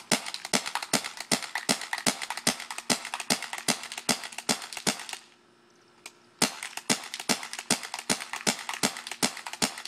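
CCM T2 pump-action paintball marker firing in rapid strings, about five shots a second, with a pause of about a second just past halfway before the shooting resumes.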